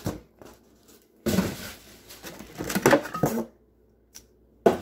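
A cardboard box and the cookware packed inside it being handled. Scraping and rustling start suddenly about a second in, and a single sharp knock comes near the end.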